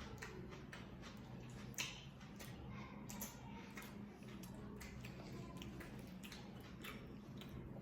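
Close-up eating sounds: soft irregular clicks and crunches of chewing and mouth noises, a few sharper ones about two and three seconds in, over a steady low hum.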